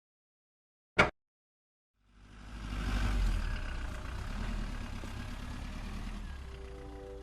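A single sharp click, then about a second later a cartoon car engine sound effect fades in and runs steadily. Music starts near the end.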